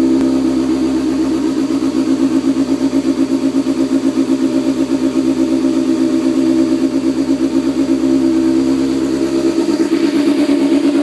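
Honda CB600F Hornet's inline four-cylinder engine idling steadily through an Akrapovic GP titanium slip-on exhaust, with an even pulsing throb.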